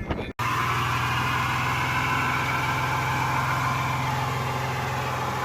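Car engine running steadily, a constant low hum with a hiss over it, starting abruptly just after the beginning.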